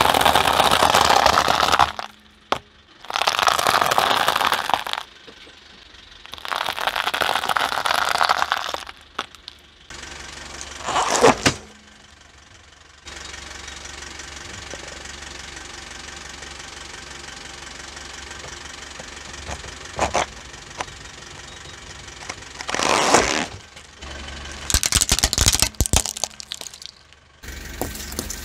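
A car tyre rolling over and crushing things in a series of loud crunches and cracks, starting with dry pasta crunching under the tread. There is a steady stretch of the car's engine running in the middle, and a crackling run of breaks near the end.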